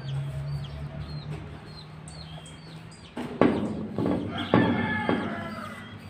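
Chickens clucking and calling, loudest in the second half, over small birds chirping and a low steady hum that fades about halfway.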